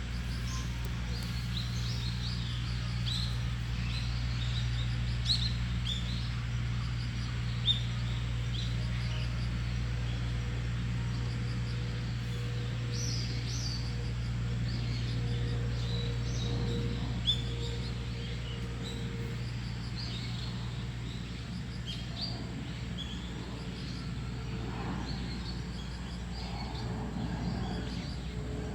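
Several small birds chirping and calling, short high chirps scattered throughout, over a steady low background rumble.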